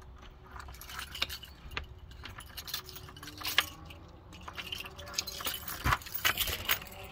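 A bunch of keys jangling and clinking in the hand, many small irregular clicks.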